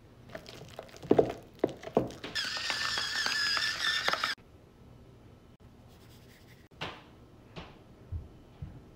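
A few sharp knocks of a metal spoon against a stainless steel bowl, then an electric pepper grinder whirring steadily for about two seconds as it grinds black pepper, stopping abruptly.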